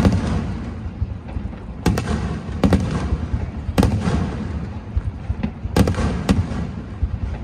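Aerial fireworks shells bursting: about six sharp bangs, irregularly spaced one to two seconds apart, over a continuous low rumble.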